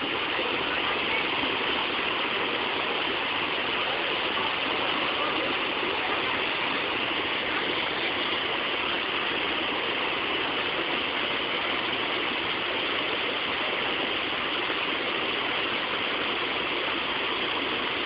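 Waterfall's falling water rushing steadily, an even, unbroken rush.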